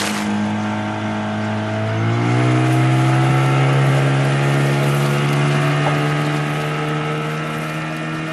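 Boat engine running on the water, its pitch rising as it speeds up about two seconds in, then holding a steady drone.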